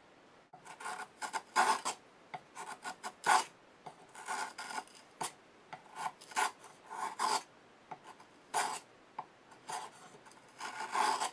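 A freshly sharpened plane iron paring thin shavings from the end grain of a softwood stick: a quick run of short, irregular scraping cuts, some twenty strokes, beginning about half a second in.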